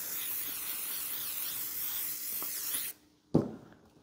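Aerosol spray can hissing steadily as a cleaning or coating spray is sprayed onto a plastic car trim cover. It stops suddenly just before three seconds in, followed by a single sharp knock.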